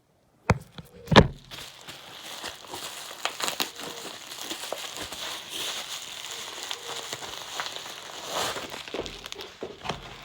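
Packaging being torn open and handled, crinkling and crackling steadily, with two sharp knocks in the first second and a half.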